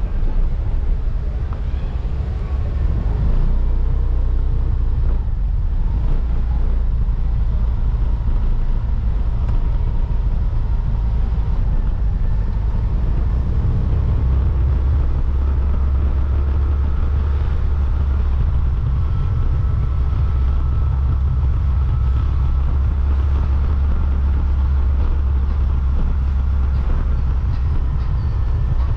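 Motorcycle riding slowly, its engine and the ride making a steady, heavy low rumble.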